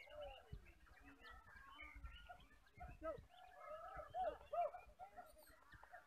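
Several caged white-rumped shamas (murai batu) singing in competition at once: a busy, overlapping tangle of short, varied whistles and chirps that bend up and down in pitch.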